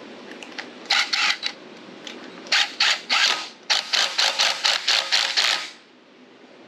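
Cordless impact driver hammering a clutch bolt tight on a minibike engine, run in short trigger bursts. There is a burst about a second in, two more near the middle, then a longer string of quick bursts that stops about a second before the end.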